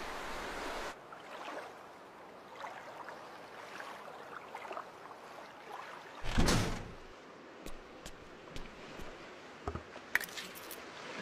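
Sparse sound effects from a wordless animated film. A steady rushing hiss cuts off about a second in, then faint light clicks and knocks follow, with one louder thud about six seconds in and a few sharp clicks near the end.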